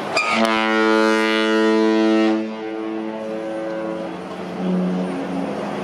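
Cruise ship horn sounding a long blast of about two seconds. Fainter horn tones hang on for a couple of seconds after it, and a short, lower horn note comes near the end.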